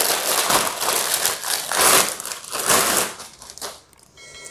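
Clear plastic wrapping crinkling as it is pulled off a folded tripod: a run of loud rustles that dies down near the end.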